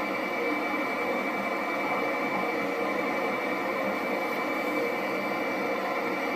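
Steady jet engine noise with a constant high-pitched whine, unchanging throughout.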